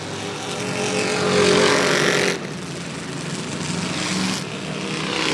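Super stock race cars' engines running past on the oval, with a hiss over them. The sound swells and drops off sharply about two seconds in, then a second car builds and fades near the end.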